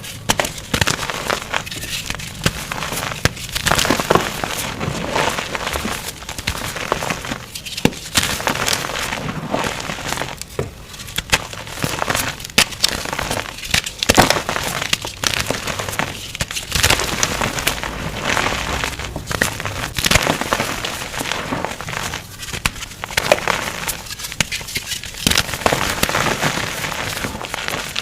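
Blocks of blue glitter gym chalk being crushed, a dense crunching and crackling that goes on with short pauses every few seconds, sped up to double speed.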